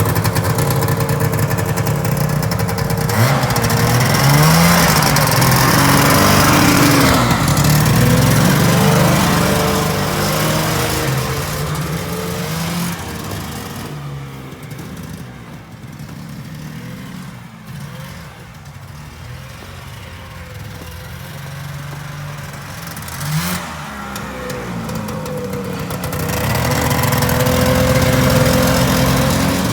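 1974 John Deere JDX8 snowmobile's two-stroke engine running with an exhaust leak, its pitch rising and falling as it is revved. It is louder through the first part, drops lower around the middle and comes back up near the end.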